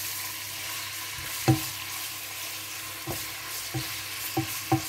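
Chicken pieces sizzling as they fry in hot oil in a pot, stirred with a wooden spatula that knocks against the pot a few times, the loudest knock about a second and a half in.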